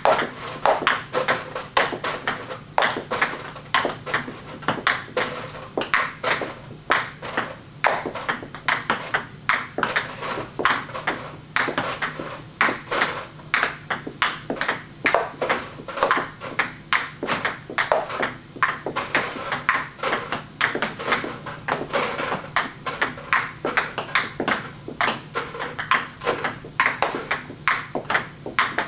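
Ping pong balls served one after another: a continuous rapid clatter of sharp clicks, several a second, as the paddle strikes each ball and it bounces on the table.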